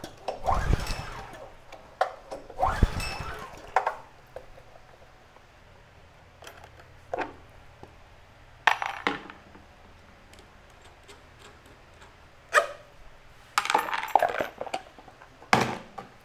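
Small pressure-washer engine pull-started twice with the choke on, without catching: the engine is a hard, cold starter. Then a few sharp metallic clinks of parts and tools being handled on a metal bench, with a short cluster of them near the end.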